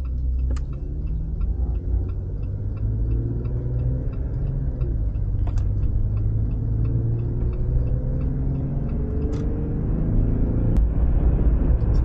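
Jeep cab interior while towing a small travel trailer: steady engine and road rumble, the engine note drifting slowly up and growing a little louder near the end as it gathers speed. A faint regular ticking runs underneath.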